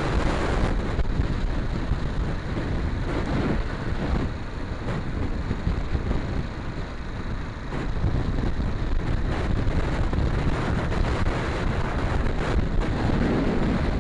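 Yamaha XT250 motorcycle's single-cylinder four-stroke engine running on the move, mixed with heavy wind noise on the microphone, dropping a little in level for a few seconds in the middle.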